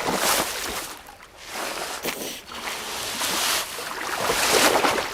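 Sea water rushing and splashing in several surges, the sound of waves washing around ice.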